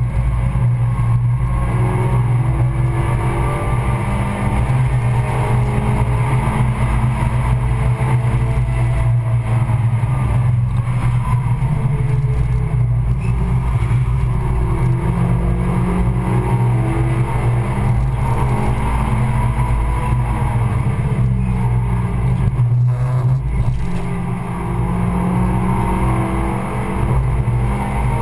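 Suzuki Swift Sport's Stage 2-tuned four-cylinder engine pulling hard at track speed, heard from inside the cabin. The revs climb and drop with the gear changes, and the engine eases off briefly about 24 seconds in.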